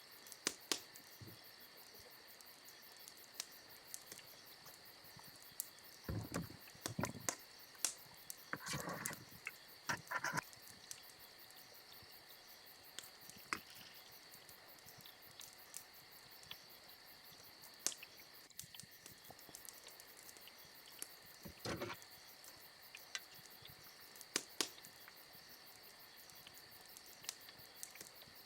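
Crickets chirping steadily in a high, continuous band, with scattered sharp clicks and a few brief knocks and rustles of handling close by.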